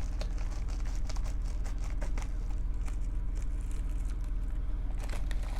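Bubble-wrap shipping mailer crinkling and rustling as it is cut open with scissors and handled, with scattered small clicks and crackles, over a steady low hum.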